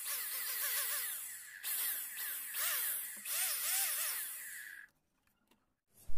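Small electric screwdriver or drill motor whirring in quick pulses, its pitch rising and falling several times a second, most likely taking the screws out of an amplifier's casing. It stops abruptly about five seconds in, and a sharp knock follows right at the end.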